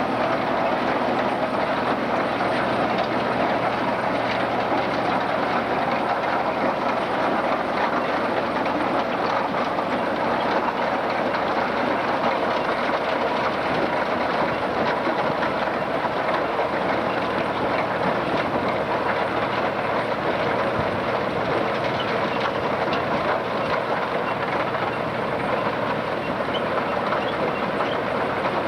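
Case IH 885XL tractor and Grimme RowOver potato harvester at work: the tractor's engine running steadily under load beneath a continuous rattling clatter from the harvester.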